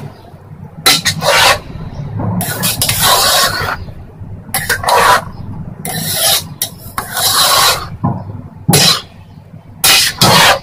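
A spoon stirring thick boiled urad (mash) daal in a metal pot, scraping against the pot in repeated strokes about once a second.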